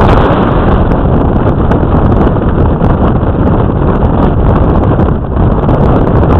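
Loud, steady wind noise buffeting the microphone in a storm.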